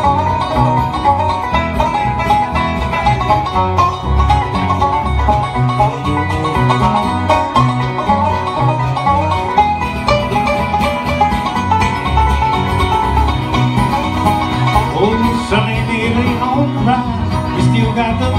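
Live bluegrass band playing an instrumental break between verses: acoustic guitar, bass guitar and fiddle over a steady beat, with no singing.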